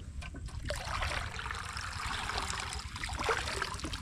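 Shallow muddy water splashing and trickling as it is stirred up, an uneven, continuous sloshing.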